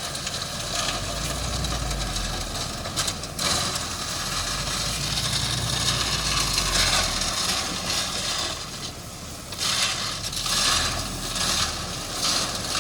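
A heavy road-construction machine's engine running low, with a crunching, scraping noise of earth and gravel over it; in the second half the crunching comes in several separate bursts.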